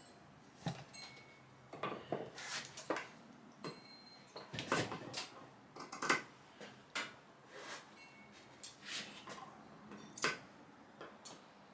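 Irregular clicks, snips and rustles of carpet being trimmed and handled around a hardboard panel, some clicks with a brief high ring.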